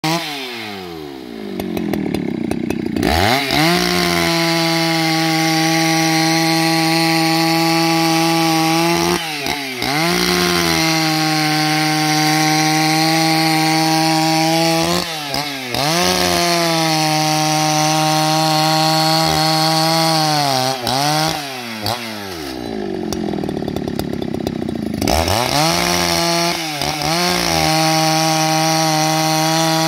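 Husqvarna 281XP two-stroke chainsaw with square-ground chain ripping lengthwise through a log at full throttle. Its steady high engine note dips briefly every five or six seconds. The revs start out falling and climb back to full throttle about three seconds in; about two-thirds of the way through they drop off for a couple of seconds, then climb back to full throttle.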